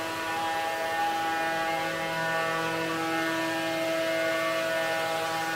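Yeti SmartBench CNC router spindle running steadily with a high whine while it cuts a sheet of board.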